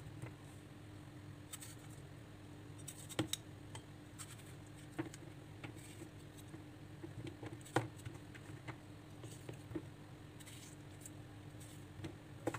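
Tomatoes being cut by hand with a kitchen knife over a plastic colander: scattered sharp clicks and soft taps as the blade cuts through and the pieces drop in, the loudest about three seconds in and about eight seconds in, over a steady low hum.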